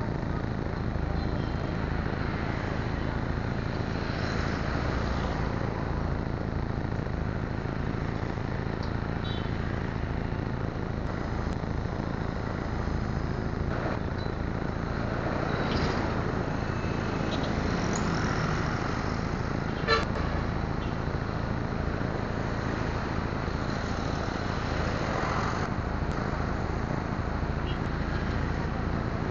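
Steady roadside traffic noise from passing vehicles, with one sharp knock about two-thirds of the way through.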